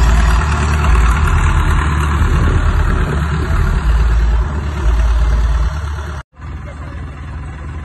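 Hindustan tractor's diesel engine running as it tows a loaded trolley, the sound heaviest in the deep bass. The sound cuts out abruptly for a moment about six seconds in and returns quieter.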